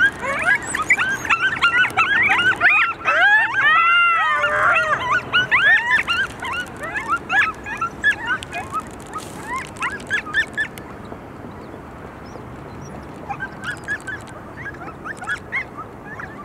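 A group of coyotes yipping and howling together, a dense chorus of quick rising-and-falling yips with a longer howl about four seconds in. The chorus thins out and quiets after about six seconds, and scattered yips pick up again near the end.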